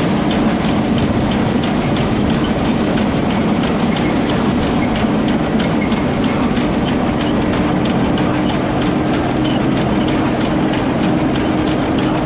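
Case IH 1660 combine running steadily while harvesting soybeans: a constant machine hum and drone overlaid with a fast, even ticking clatter.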